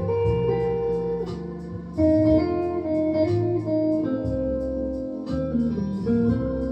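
Solid-body electric guitar played slowly, picking a melodic line of held, ringing notes that overlap one another.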